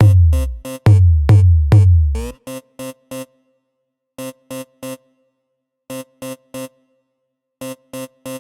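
Electronic DJ remix music from a drum machine and synthesizer: four heavy bass booms that drop in pitch in the first two seconds, then short chopped synth stabs separated by gaps of silence.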